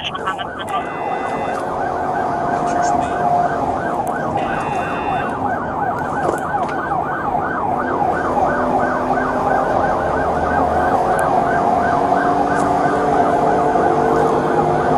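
Police car siren cycling in a fast yelp, heard from inside the cabin of the moving patrol vehicle, with road and engine noise underneath.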